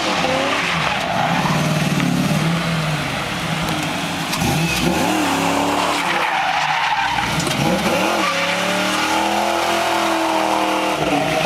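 Fox-body Ford Mustang GT's 5.0 V8 revving during a burnout, its rear tyres spinning and squealing on asphalt as it drifts in circles. The engine pitch rises and falls again and again.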